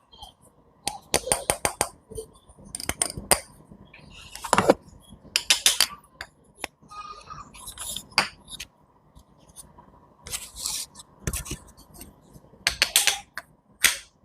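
Knife cutting through fresh fruit or vegetables on a cutting board: crisp, sharp cutting clicks in quick clusters, with a few longer crunchy slices between them.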